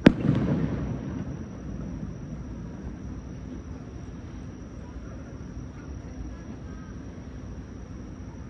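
A firework shell bursting with one sharp boom right at the start. Its rumble rolls on for about a second, then dies away to a low background.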